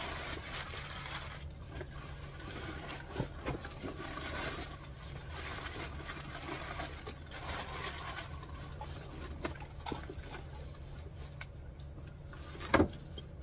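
Crumpled packing paper and cardboard rustling and scraping as hands dig through a shipping box, with small clicks throughout and one sharp knock near the end.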